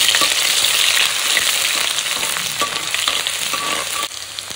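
Hot cooking oil sizzling in a pan as ingredients go in, with stirring and small clicks of a spoon in the pan. The sizzle drops off sharply about four seconds in.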